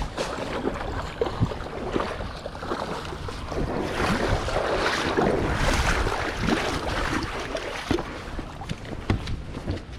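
Steady rush of water and wind on the microphone, swelling for a couple of seconds mid-way, with scattered small clicks and knocks.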